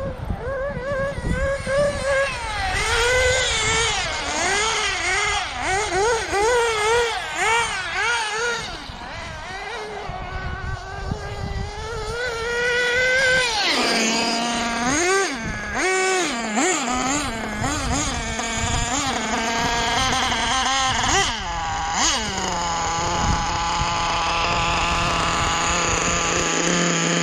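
Two-stroke glow engine of a HoBao Hyper VS2 nitro RC buggy, revving up and down rapidly as it is driven, then blipping and settling to a steady idle near the end. The owner feels the engine is set a bit rich on the low-speed needle.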